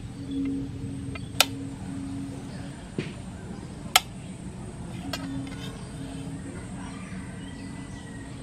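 A steel knife blade clinking against a stainless steel plate as it cuts through hard-boiled eggs: two sharp clinks, about a second and a half in and at four seconds, with fainter taps around three and five seconds. A low hum comes and goes underneath.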